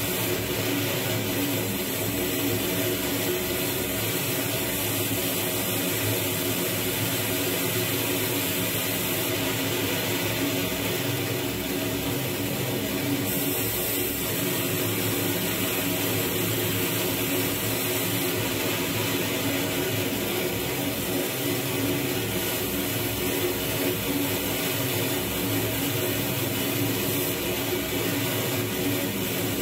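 Dense electronic noise drone from a live Max/MSP improvisation with the frakMSP suite: a steady hissing wash over held tones, with a regular pulse in the low end. The high hiss shifts in level a few times.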